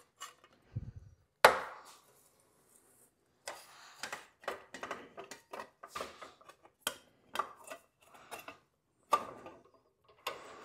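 Hand-lever sheet-metal shear cutting 18-gauge steel sheet: a sharp metal clank about a second and a half in, then a run of irregular crunching clicks and knocks as the blade works through the sheet.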